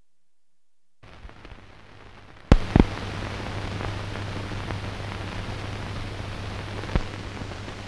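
Hiss and crackle of an old optical film soundtrack, with a steady low hum underneath, coming in about a second in after silence. Sharp pops stand out, a close pair about two and a half seconds in and one more near the end.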